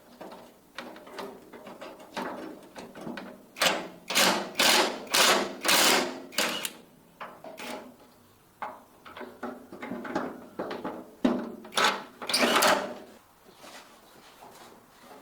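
Repeated hand-tool scraping strokes: short, uneven rasps with a fast run of about six loud strokes in the middle and a few more near the end.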